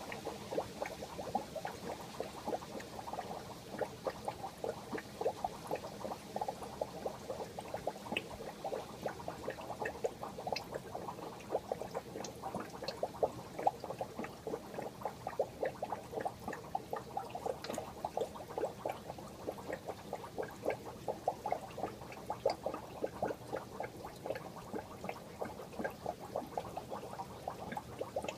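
Aquarium water bubbling and trickling steadily, a dense run of small irregular bubbling pops.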